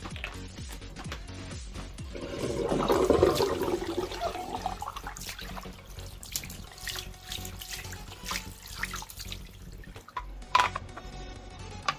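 Tap water running into a sink basin, loudest a few seconds in and then quieter, with a few sharp knocks near the end.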